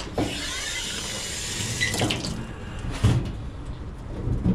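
Canvas shoes handled in a stainless steel wire basket in a sink. A steady hiss for the first two seconds, then several knocks and rattles as the shoes are moved against the wire, the loudest about three seconds in.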